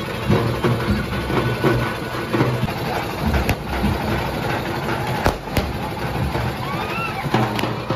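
Frame drums beating a dense, fast rhythm, with firecrackers going off over it in four sharp bangs: one about three and a half seconds in, two close together around five and a half seconds, and one near the end.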